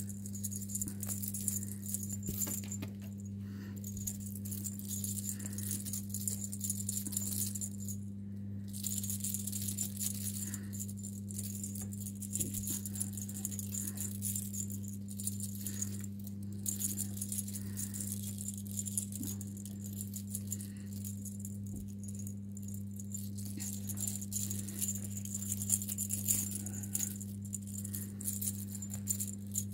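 Light, continuous high-pitched rattling and jingling as a kitten plays with a feather wand toy, over a steady low hum.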